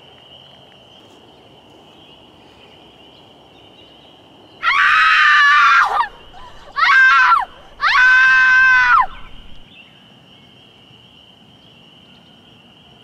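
A person screaming three times, loud and high-pitched: two long screams with a short one between, starting about halfway through. Under it runs a steady high chirring of crickets.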